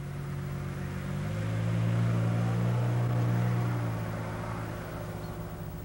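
Car engine running as the car drives past, its low hum growing louder to a peak about two to three seconds in and then fading away.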